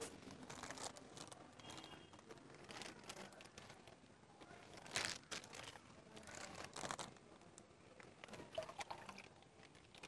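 Faint crinkling and crackling of thin plastic fish bags being handled, with a couple of louder crinkles about five and seven seconds in.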